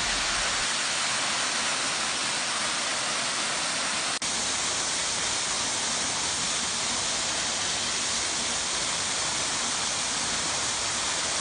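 Steady rush of a waterfall pouring over rocks into a plunge pool, broken by a split-second gap about four seconds in.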